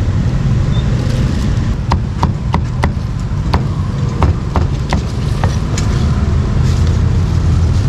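Cleaver chopping meat, about ten sharp chops in quick succession from about two seconds in until past the middle, over a steady low traffic rumble.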